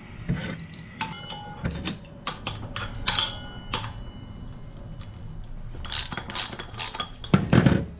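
Metal clinks, clicks and knocks of hand tools and hardware being worked in the hub of a small minibike wheel, some clinks ringing briefly. Near the end come a few louder, dull thumps.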